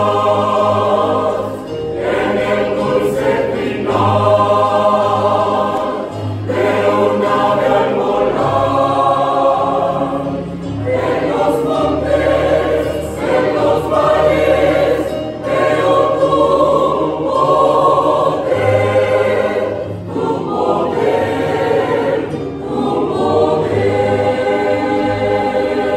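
Mixed choir of women's and men's voices singing a hymn, in sustained phrases of a few seconds each with brief dips between them.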